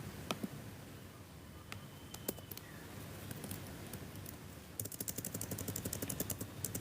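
A few scattered light clicks in a quiet room, then from about five seconds in a fast run of light clicks: typing on a computer keyboard.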